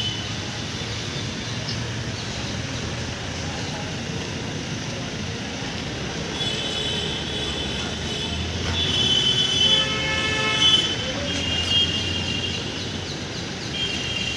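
Electronic horn fitted to a tractor, sounding repeated high steady two-note tones in bursts of one to two seconds from about six seconds in, with a lower, fuller horn note about ten seconds in. A steady rumble lies underneath.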